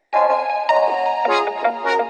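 A Samsung Galaxy Tab A8 ringtone begins just after a brief silence: an electronic melody of layered, keyboard-like tones and chords that moves from note to note.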